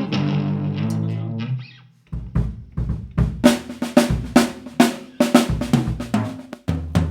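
An electric guitar chord rings out and fades over the first two seconds, then a drum kit plays on its own: bass drum and snare hits in a quick rock pattern. A low held note comes in near the end.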